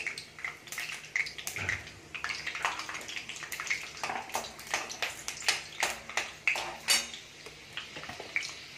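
Steel spoon stirring peanuts roasting in oil in a steel kadai: irregular metal-on-metal clinks and scrapes, a few a second.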